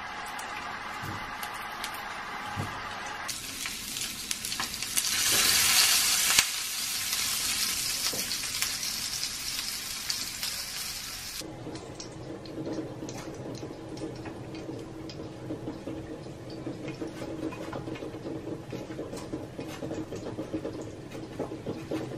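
Wiener sausages sizzling in a small rectangular egg pan on a gas hob, loudest about five or six seconds in. The sizzle cuts off suddenly about halfway through, leaving a quieter steady hum with light clicks.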